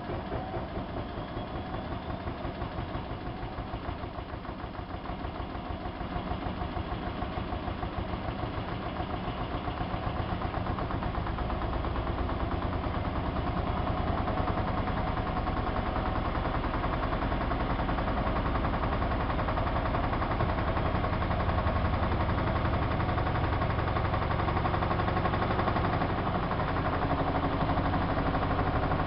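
Siemens iQ WIQ1430 front-loading washing machine spinning up: the drum's hum and vibration grow steadily louder as it gathers speed.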